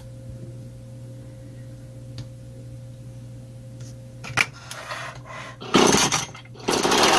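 Husqvarna 440 two-stroke chainsaw being pull-started: a loud burst about six seconds in as the cord is pulled, then the engine catches and runs loud near the end. Before that there is only a faint low hum.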